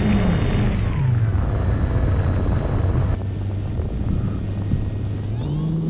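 Electric motor and propeller of an OMP Bighorn RC airplane in flight, heard from an onboard camera with wind rushing past. The motor's pitch drops within the first second as the throttle comes back, holds low and steady, then rises again near the end.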